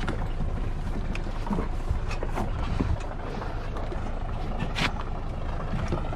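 Boat engine idling with a steady low rumble, with a few sharp knocks and clicks as dock lines are handled against the hull and dock, the sharpest about five seconds in.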